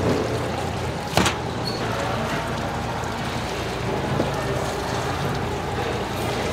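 Steady low hum and background din of a fish shop, with one sharp knock about a second in and a lighter one near the end of the trimming; the knife cutting the tuna loin is not clearly heard above it.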